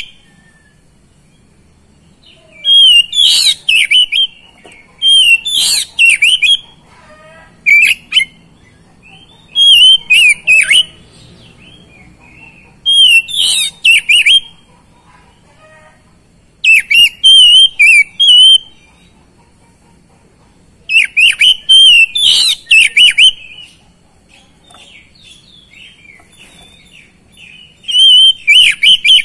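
Oriental magpie-robin singing loudly in about eight short bursts of rich, fast-changing whistled phrases. Pauses of one to a few seconds separate the bursts. The bird is in full song ("gacor").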